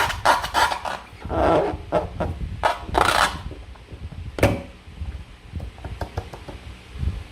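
Hands working slime and plastic craft containers: quick taps and clicks at first, then two longer squishy, sticky smears, a sharp click about four and a half seconds in, and fainter scattered ticks.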